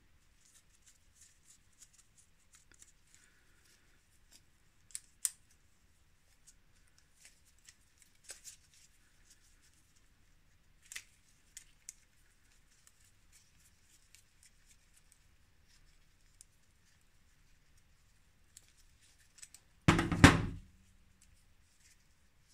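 Metal parts of a Mafac Racer centre-pull brake caliper clicking and scraping against each other as they are handled, with a few sharper clicks and one loud clatter near the end.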